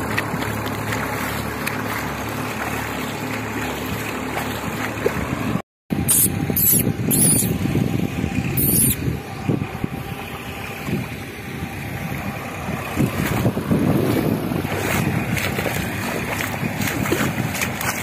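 Massey Ferguson 241 tractor's diesel engine running steadily in the distance, with an even low hum. After an abrupt cut about six seconds in, wind buffets the microphone in uneven gusts with some handling rustle.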